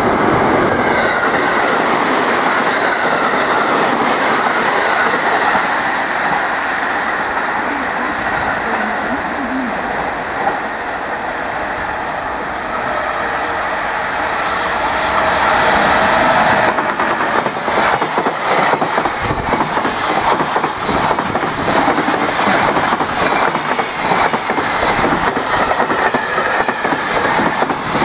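JR Freight EF210 electric locomotive hauling a container freight train past at speed, followed by its container flat wagons. A steady running noise gives way, a little over halfway through, to a rapid, continuous clatter of wagon wheels over rail joints.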